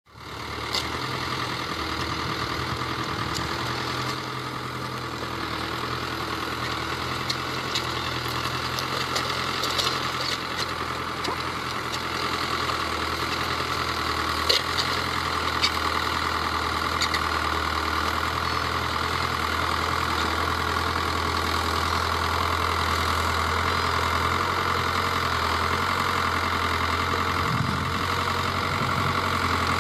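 New Holland 80-66S tractor's diesel engine running steadily under load while it pulls a disc plough through the soil. A few sharp clicks sound over the engine around the middle.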